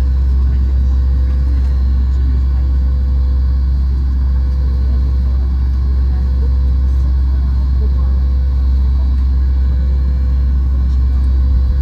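Steady cabin noise inside a Boeing 737 MAX 8 airliner on the ground: a strong, even low rumble with a constant mid-pitched hum above it.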